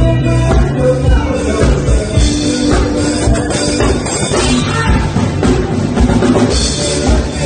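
Recorded music with a drum-kit beat and heavy bass, played loudly through a mini stage PA speaker system that is being tested.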